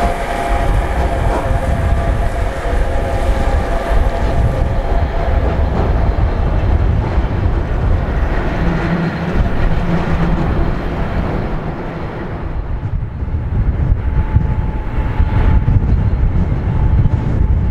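Freight train hauled by an electric locomotive running past: a steady rumble of wheels on rail with some clickety-clack, and whining tones near the start that fade out. About twelve seconds in, this gives way to the rumble of another electric locomotive coming across a steel lift bridge.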